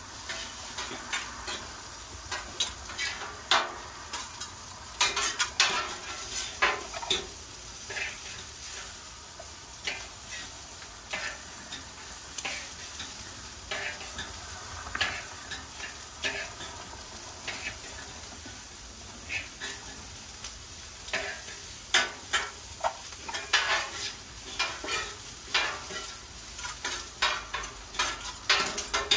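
Shrimp and ribeye steak sizzling on a Blackstone flat-top griddle, with frequent irregular clicks and scrapes from a metal spatula and fork working the shrimp on the steel surface.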